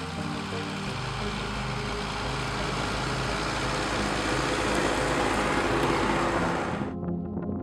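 Farm tractor driving past close by, its engine and running noise growing louder to a peak about five to six seconds in. The sound cuts off abruptly about seven seconds in.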